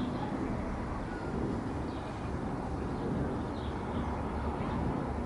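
Outdoor ambience of a steady low rumble, with faint short bird chirps every second or two.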